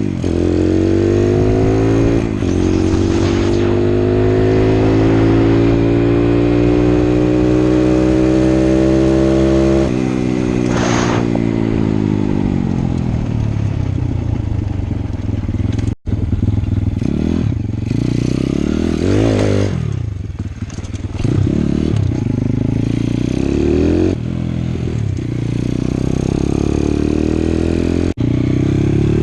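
Pit bike's Piranha 140cc single-cylinder four-stroke engine under way: it pulls up steadily in pitch for about ten seconds, drops back, then revs up and down repeatedly as the bike is ridden, with two brief breaks near 16 seconds and near the end.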